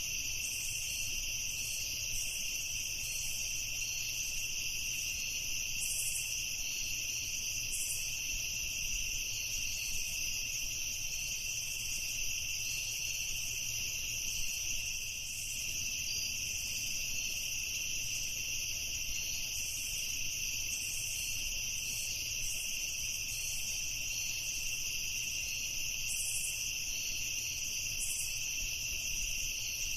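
Crickets chirring steadily in a continuous chorus, with a constant high trill.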